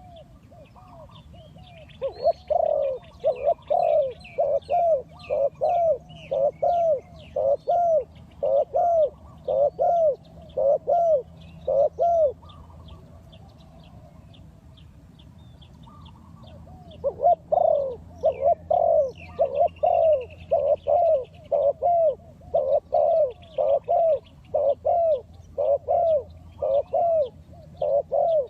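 Spotted dove cooing: a run of short, arched coos at about two a second that lasts some ten seconds, breaks off for about five seconds, then starts again. Faint chirps of small birds sound behind.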